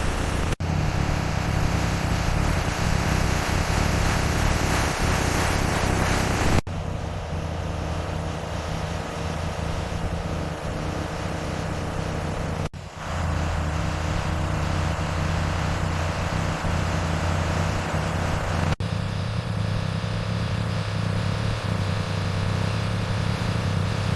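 Heavy vehicle engine running steadily with a low rumble, broken by abrupt cuts about every six seconds where the sound jumps straight into a new stretch of the same running.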